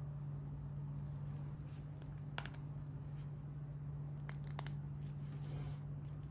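Small LEGO plastic pieces being handled in gloved hands, giving a few sharp clicks around two and a half seconds in and a quick cluster near four and a half seconds, over a steady low hum.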